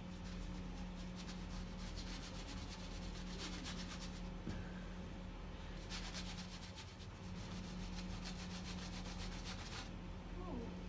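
Paintbrush stroking black paint across a small canvas, a fast run of soft scratchy strokes. It pauses briefly about halfway and stops near the end.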